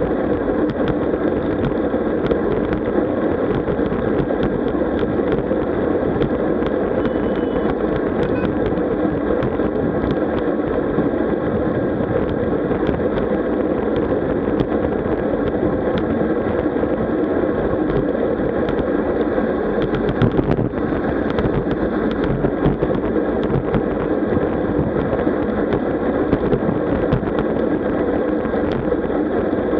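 Steady wind and road rumble picked up by a camera riding on a road bike in motion, with faint small clicks and rattles throughout.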